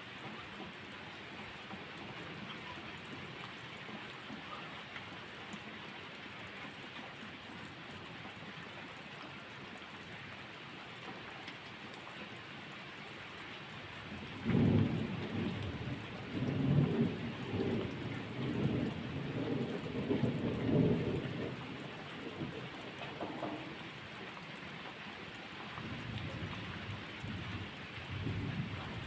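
Steady rain falling, with a clap of thunder breaking in suddenly about halfway through and rolling on for several seconds; a fainter rumble of thunder follows near the end.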